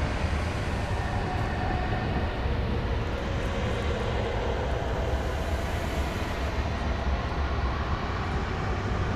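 Steady low rumble of outdoor background noise, with a few faint steady tones above it and no distinct events.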